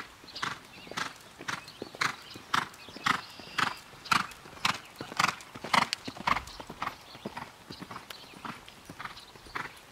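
Quarter horse loping on arena dirt: hoofbeats in an even rhythm of about two strides a second, loudest in the middle as the horse comes nearer.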